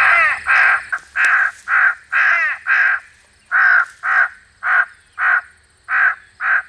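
Electronic game caller playing recorded crow caws: a loud, rapid run of harsh caws, about two a second, with a short break about three seconds in. The calls are there to lure crows in to the decoys.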